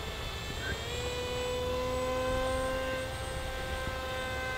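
Electric motor and propeller of a Wing Wing Z-84 RC flying wing whining steadily as it flies overhead, the pitch rising slightly about a second in.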